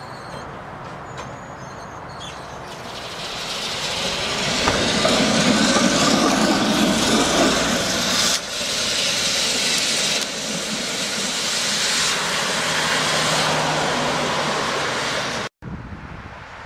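PCC streetcar rolling along the track and passing close by, growing louder as it comes up and loudest as it goes past. The sound cuts off abruptly near the end.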